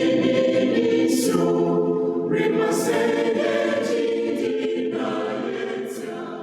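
Church choir singing a hymn unaccompanied, many voices in harmony, fading away near the end.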